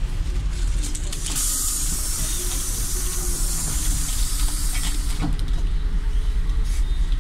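City bus engine running with a low rumble while compressed air hisses out loudly for about three and a half seconds, starting about a second in: the bus's pneumatic door or brake system venting as it pulls away from a stop.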